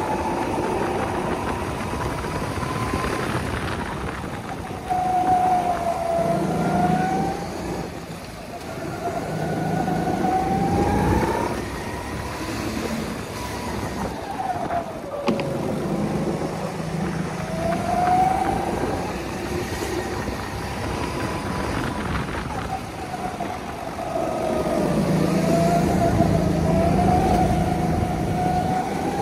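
Petrol rental go-kart engine heard from the driver's seat, revving up along the straights and dropping in pitch when lifting off for the corners, over and over through the lap.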